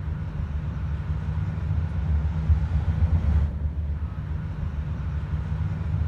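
Melbourne Metro electric suburban train running into the station, a heavy low rumble with a faint high brake squeal over it as it slows to stop.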